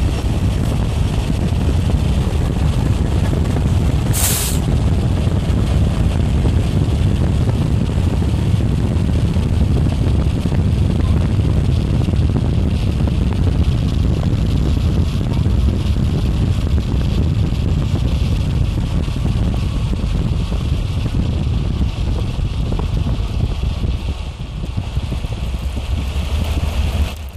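Steady road and wind rumble of a car moving at speed, heard from inside the car, with a short sharp hiss about four seconds in. It eases a little near the end.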